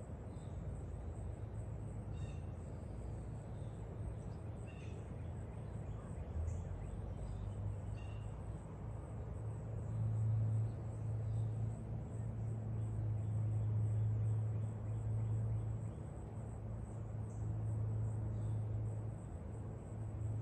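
Backyard ambience: a low hum that grows louder from about halfway through, with a few faint bird chirps in the first half.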